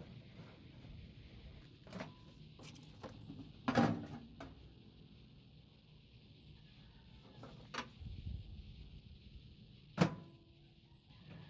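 Scattered knocks and clicks of parts being handled during a microwave oven teardown, a few seconds apart, the loudest about four seconds in and near the end, over a steady faint hiss.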